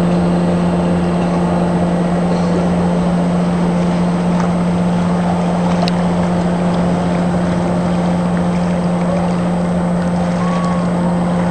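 Outboard motors of racing aluminium fishing boats running steadily, one close by holding an even, unchanging drone over the wash of the others and the water.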